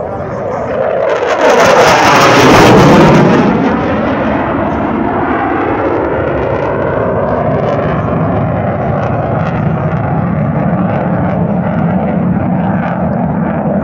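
Saab Gripen fighter jet making a fast pass: its engine noise swells to a peak about two to three seconds in, the pitch falling as it goes by, then settles into a steady jet noise as it flies on.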